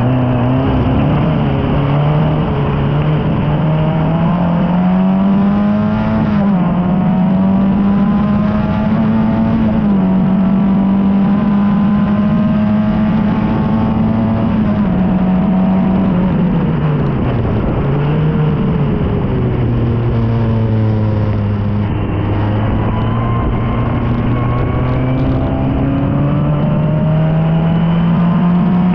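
Formula Ford racing car's engine heard from on board under hard acceleration. The note climbs, falls back at each gear change, dips low once midway, then climbs again.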